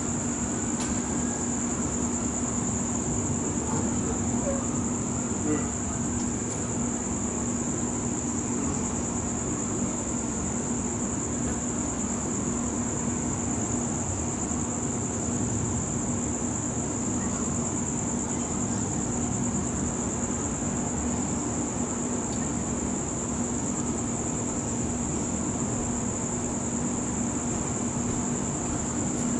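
Crickets trilling steadily at night, with a steady low hum underneath.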